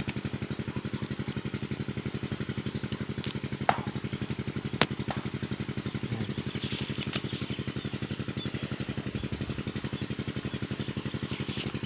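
A small engine running steadily at idle with an even, rapid pulsing. Two sharp clicks stand out above it about four and five seconds in.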